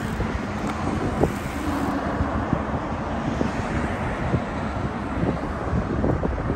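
Steady wind noise buffeting a moving microphone, with road traffic under it.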